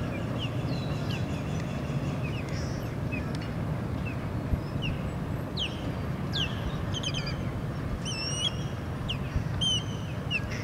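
Small birds chirping over and over in short high sweeps, busier in the second half, over a steady low rumble from the MARC MP36 diesel train as it backs away across the trestle bridge.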